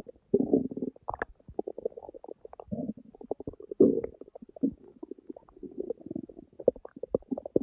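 Human stomach growling from hunger after a skipped lunch: an irregular run of gurgles and short pops, with longer gurgles about half a second in, near three and four seconds, and around six seconds.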